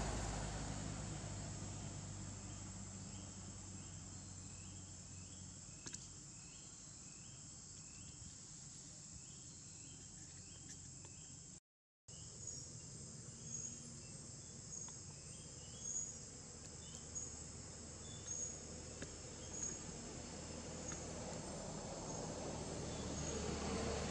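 Insects buzzing steadily at a high pitch, with repeated short chirps over the top and a low rumble that fades out early and swells again near the end. The sound cuts out completely for a split second about halfway through.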